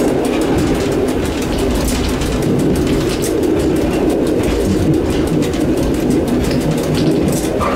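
EN57 electric multiple unit running along the line, heard from the driver's cab: a steady rumble of motors and wheels on the rails, with frequent rattles and clicks.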